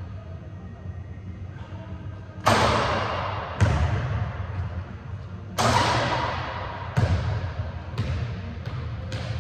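A basketball bouncing on a hardwood gym floor: a handful of sharp bangs, each ringing on in the large hall, coming a second or two apart and closer together near the end as the ball is dribbled. A low steady hum lies under them.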